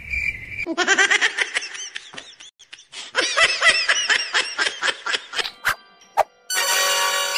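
High-pitched laughter in quick repeated 'ha' bursts for about four seconds. Near the end a sharp click sounds and a steady buzzing tone starts.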